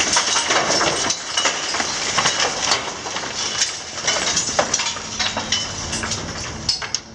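Broken masonry rubble falling and clattering down from a building being demolished: a dense run of cracks and knocks that stops near the end.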